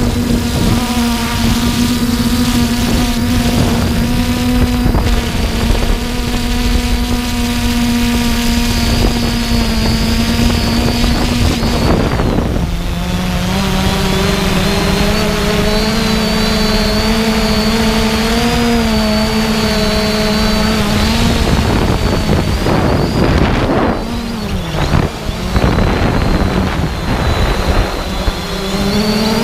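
The 3DR Iris+ quadcopter's electric motors and propellers give a steady whine over a rush of air noise. The pitch steps down about twelve seconds in, and near the end it wavers and briefly dips in level.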